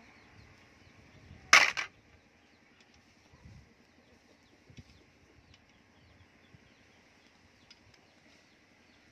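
A short sharp clatter of a few quick knocks about a second and a half in, then a quiet background with a few faint ticks.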